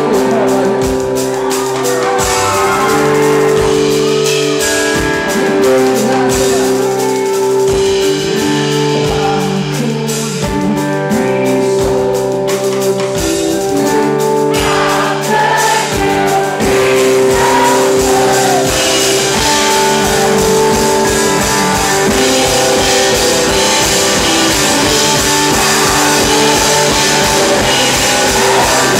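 A live band playing: a man singing lead over acoustic-electric guitar and drum kit.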